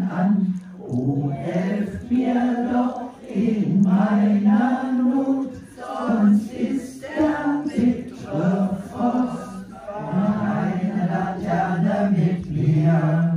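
A group of older voices singing a St. Martin's song together, in slow held phrases.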